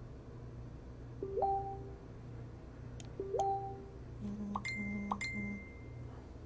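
Computer notification chimes: two short rising two-note dings about two seconds apart, with sharp mouse clicks between them, then a brief pulsing run of electronic beeps a little over four seconds in.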